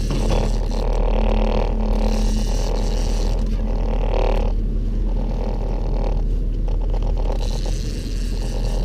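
A boat's motor running steadily as a low hum, with stretches of rushing noise over it that come and go every second or two.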